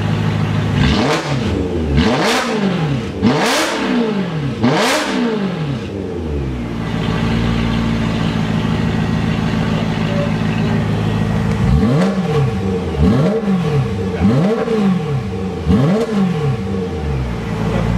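BMW E92 M3's 4.0-litre V8 breathing through a stainless variable-valve exhaust with X-pipe and quad-tip rear muffler, blipped to about 3,000–5,000 rpm from idle. Four quick revs in the first few seconds, a steady idle, then four more quick revs near the end.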